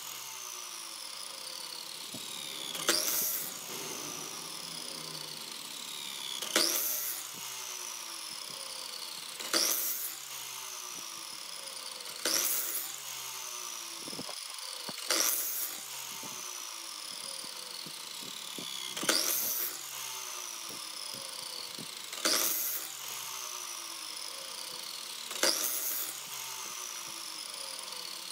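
Electric miter saw cutting small wooden blocks, eight cuts about every three seconds. Each is a short burst as the blade goes through the wood, then a falling whine as the blade spins down.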